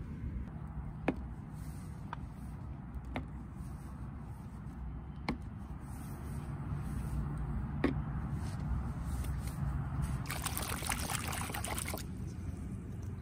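Water trickling and pouring, with a few scattered sharp clicks and a louder hissing pour lasting about two seconds near the end.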